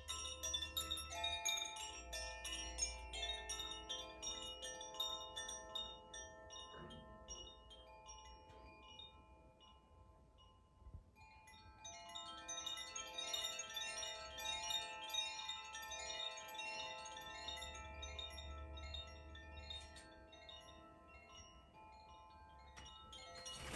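Koshi chimes rung by hand: many overlapping shimmering tones that build into a dense cluster, thin out and die away about ten seconds in, then swell again and fade, with a fresh swell starting just at the end.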